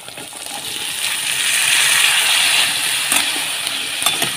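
Cut vegetables (beetroot, carrot, potato, green peas) tipped into hot mustard oil in an aluminium wok, sizzling as they land, the hiss swelling over the first second or two and then holding steady. A few clicks of the metal spatula against the pan follow near the end.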